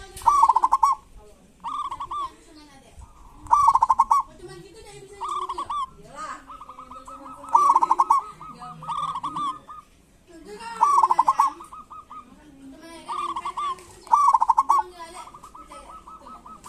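Zebra doves (perkutut) giving repeated short rattling 'kerot' calls every one to two seconds, one drawn out for about two seconds, over softer wavering coos.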